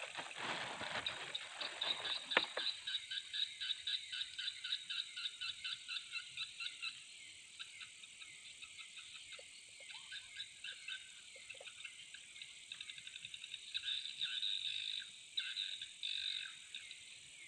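Night frog chorus: frogs calling in rapid pulsed trains, over the steady high drone of crickets and other insects. A short rustling noise ending in a sharp click comes in the first couple of seconds.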